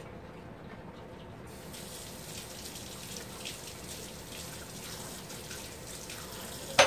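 Kitchen tap running into the sink as a knife is rinsed, the water starting about a second and a half in. A sharp clatter near the end.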